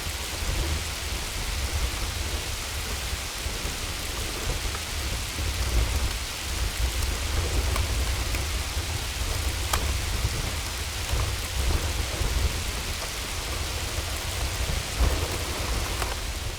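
Hailstorm: a steady hiss of hail and rain falling, over a continuous low rumble, with scattered sharper hits of single stones, one of them loud about ten seconds in.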